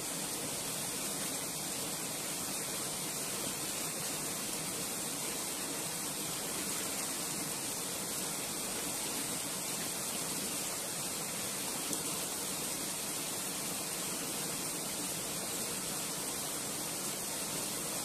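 Mountain river rushing over rocks through a small cascade: a steady, even rush of white water.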